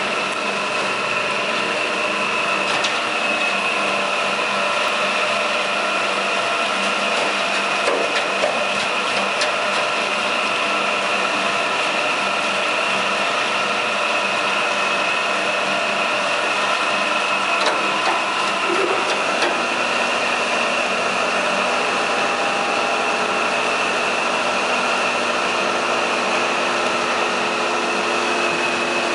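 ZSF30 concrete reclaimer plant machinery running: electric motors and drives giving a steady hum with a high whine on top, broken by a few faint clicks.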